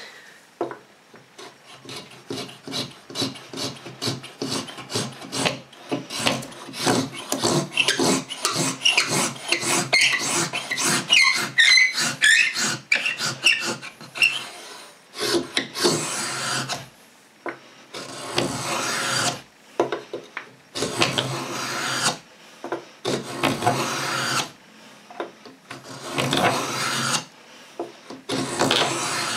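Lie-Nielsen No. 66 beading tool's steel cutter scraping a bead profile into hard maple. It starts with quick, short back-and-forth strokes, then at about the halfway point changes to slower, longer single strokes every two to three seconds.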